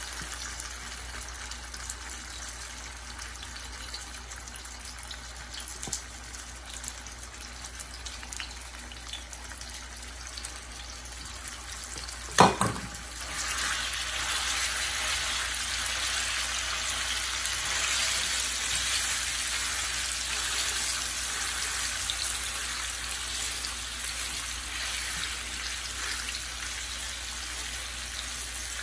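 Marinated beef sizzling in hot oil in a nonstick frying pan, a steady frying hiss. About twelve seconds in there is a single sharp knock, and after it the sizzle grows louder.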